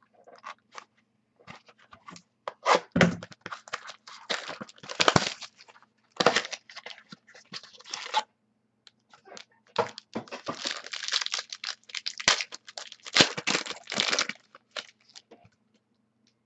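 Trading-card packaging being torn open and crinkled by hand, in two spells of irregular crackling and tearing.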